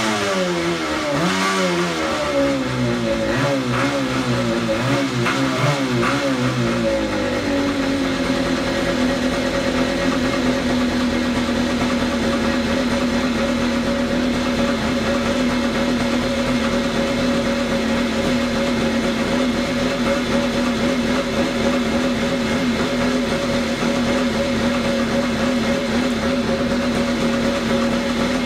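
Two-stroke twin engine of a 1987 Kawasaki X2 jet ski running out of the water on a flush hose. For the first several seconds its revs rise and fall unevenly, then it settles into a steady idle.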